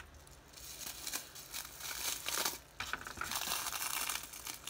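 Plastic bubble wrap crinkling as it is peeled off an alcohol-ink-painted tumbler, faint at first and louder from about two seconds in.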